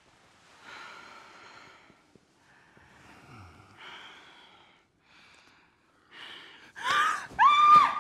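A woman's soft breathing and sighs, then two loud, high startled cries near the end.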